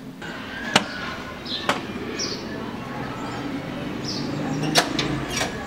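Sharp metallic clicks and clacks from a barred steel street gate, its lock and latch worked and the gate pulled open, with a cluster of clicks near the end. Under them runs a steady low street hum, with a few short high chirps.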